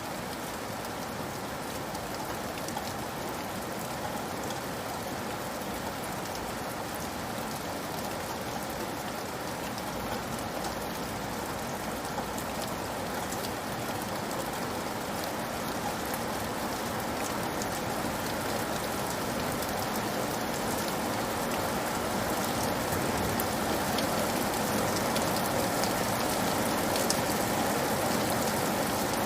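Steady rain falling on a roof, a dense hiss with many small drop ticks, growing slowly louder.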